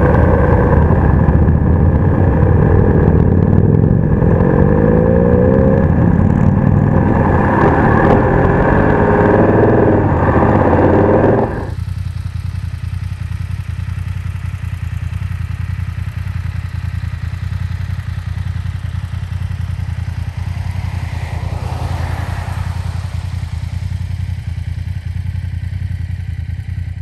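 BMW F850 GS parallel-twin engine running under way with wind noise, its pitch rising and falling with the revs. About eleven seconds in it gives way abruptly to a quieter, steady low rumble, with a brief swell of sound about two-thirds of the way through.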